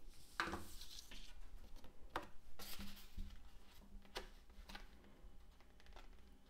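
Faint handling sounds of cardstock: about six short rustles and light taps as a glued paper panel is pressed and lined up on the front of a small folded card.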